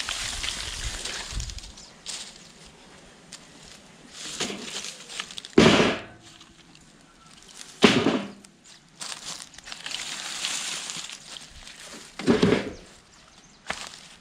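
Dry branches being gathered as firewood: three loud sharp cracks of dry wood, about five and a half, eight and twelve and a half seconds in, with dry leaf litter crunching and rustling between them.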